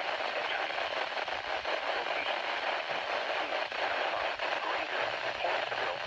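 Midland weather radio's speaker playing a NOAA Weather Radio broadcast through heavy static: a steady hiss with a faint voice underneath.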